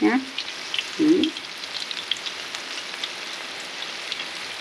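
Panko-breaded shrimp deep-frying in a pan of hot oil: a steady sizzle with scattered small crackles and pops. A brief voice sound about a second in is the loudest moment.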